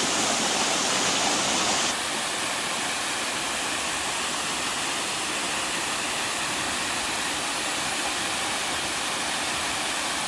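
Steady rushing of a small mountain waterfall pouring over rock. About two seconds in, the sound abruptly becomes a little quieter and less hissy, then runs on evenly.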